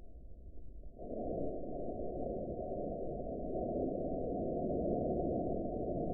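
Steady radio static hiss from a weather radio receiver, stepping up in level about a second in.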